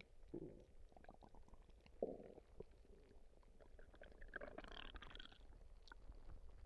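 Human stomach gurgling and rumbling faintly. Short low gurgles come about half a second and two seconds in, then a longer, higher-pitched gurgle follows around four to five seconds in.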